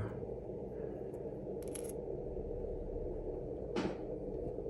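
Two small clicks of tiny plastic keyboard parts (a MacBook butterfly key mechanism and cup) being picked up and set down on a hard surface, about 1.8 s in and again near 3.8 s, the second the fuller. A steady low background hum runs beneath.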